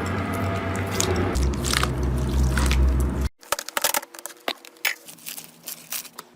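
Slime being squished and worked by hand, full of wet clicks and pops over a low hum. About halfway through it cuts off abruptly, and a quieter stretch of scattered sharp clicks and pops follows.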